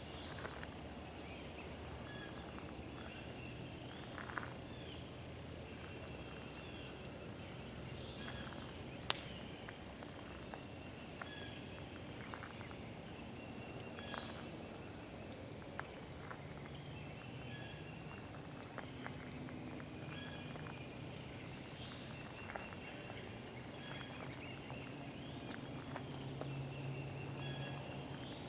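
Outdoor woodland ambience: birds chirping in short, repeated notes, with a small campfire crackling and popping now and then, one sharper pop about nine seconds in. A faint low hum underneath grows louder near the end.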